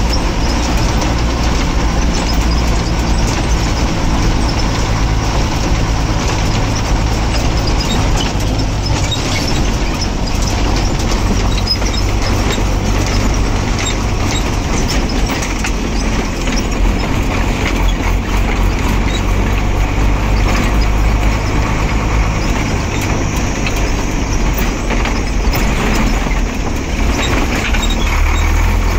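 1996 Ashok Leyland 1611 Comet Super truck's diesel engine running steadily while the truck is driven along, heard from inside the cab, with road and cab noise over it.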